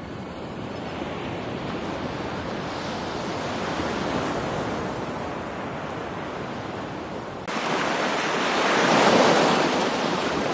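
Steady rushing of water, like surf, slowly swelling and fading, then jumping suddenly to a louder, brighter rush about three quarters of the way through.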